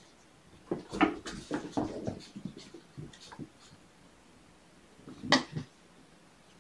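Kittens playing and chasing: a quick run of soft thumps and scuffles on carpet and toys, then one louder knock about five seconds in.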